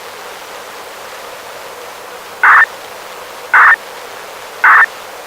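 Radio receiver tuned to a municipal disaster-prevention radio channel on 69.450 MHz, giving a steady static hiss from noisy reception. In the second half, three short, loud beeps sound about a second apart.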